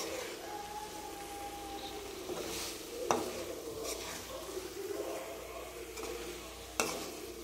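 Prawns in a thick tomato-onion masala sizzling in an aluminium kadai over high flame while a steel spoon stirs and scrapes through them. The spoon knocks sharply against the pan twice, about three seconds in and near the end.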